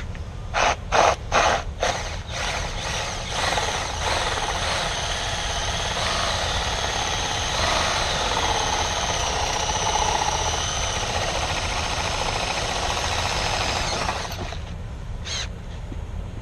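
Power drill: a few quick trigger pulses, then running under load for about eleven seconds with its pitch wavering, stopping, and one more short pulse near the end.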